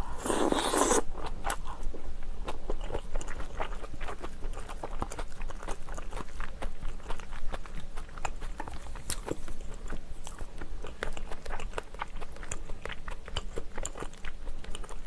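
Close-miked mouth sounds of eating rice and kimchi stew: a loud wet burst as the mouthful goes in, then steady chewing with many small irregular wet clicks and smacks.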